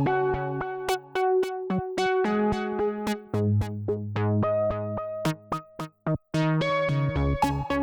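Background electronic music: synthesizer and keyboard notes over a drum-machine beat.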